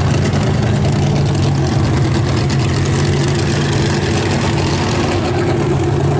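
Demolition derby car engine idling, a loud, steady low rumble.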